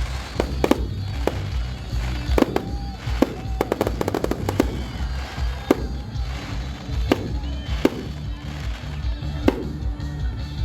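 Fireworks going off in sharp bangs at irregular intervals, with a quick run of rapid cracks about four seconds in. Loud music with a pulsing bass plays underneath.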